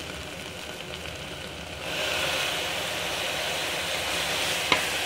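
Onion and spice masala sizzling in an aluminium pressure cooker. About two seconds in, water poured in from a jug makes the sizzle louder and hissier. A single click comes near the end.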